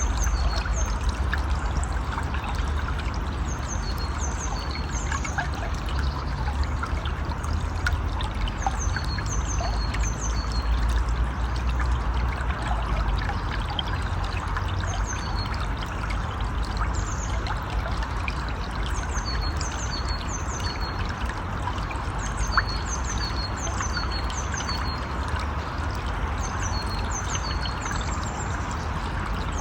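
Steady rush of a flowing river or stream, with a low rumble under it. A bird calls in repeated groups of short, high, falling chirps over the water.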